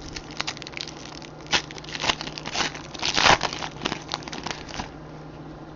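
Baseball card packs and cards being handled: a run of quick crinkles and rustles, loudest about three seconds in, that stops a little before the end.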